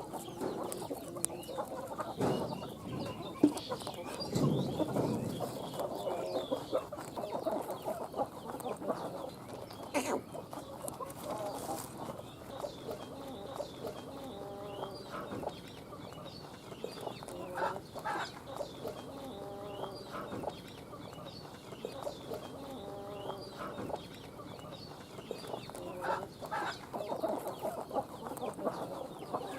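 Chickens clucking: many short repeated calls throughout, with a few sharp knocks in between.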